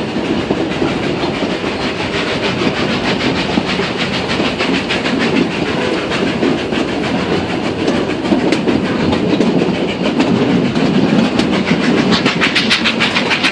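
Puffing Billy narrow-gauge heritage train running along the line, heard from aboard: a steady rumble with fast clicking and clatter of wheels on rails, busier near the end.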